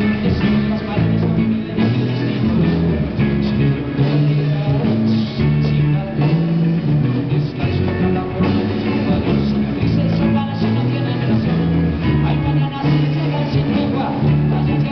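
Live rock band playing a passage without vocals: electric guitars, congas and drums.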